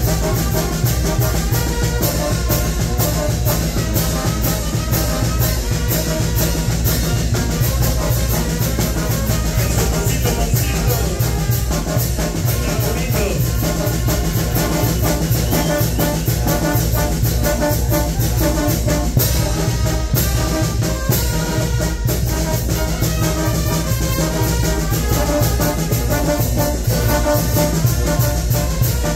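Mexican banda de viento playing live: trumpets, trombones and a sousaphone over drums, with a steady dance beat and a heavy brass bass line.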